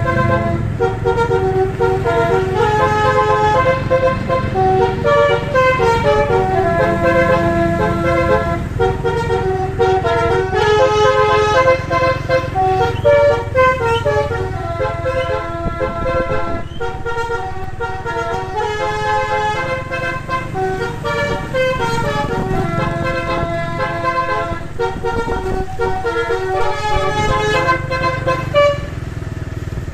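Bus basuri horn, a multi-tone melody air horn, playing a long tune of many short stepping notes over the bus engine's low rumble. The tune stops shortly before the end.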